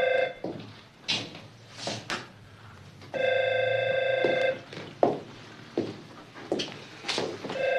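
Desk telephone ringing with a warbling electronic ring, each ring about a second and a half long. One ring ends just after the start, a full ring sounds in the middle, and the next begins near the end, with a few soft knocks in the gaps between rings.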